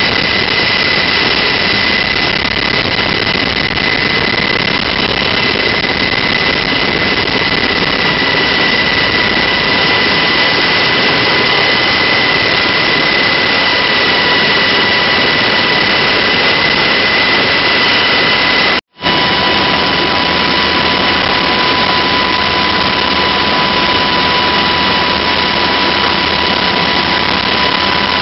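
Black Hawk helicopter's twin turboshaft engines and rotors in flight, heard from inside the cabin with the side door open: a loud, steady rush with a constant high whine. The sound cuts out for an instant about two-thirds of the way through, and after it the whine sits lower in pitch.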